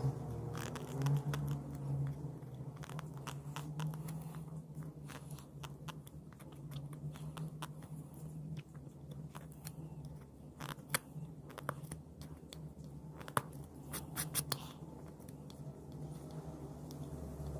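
Small hand carving chisel cutting into a wooden board: irregular crunches and sharp clicks as wood chips are pried out, coming thicker past the middle, over a steady low hum.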